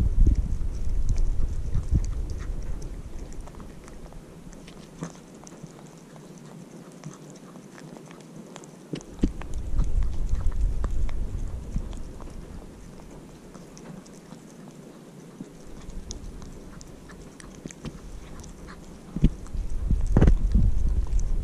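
An orange-and-white kitten eating cat food right at the microphone: close chewing with small clicks of teeth on food. It is louder at the start, around the middle and near the end, and quieter in between.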